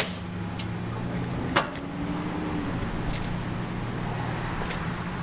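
Payphone handset being hung up and taken up again to place another call: a sharp click at the start, then a louder clunk about a second and a half in, followed by a few faint clicks, over a steady low hum.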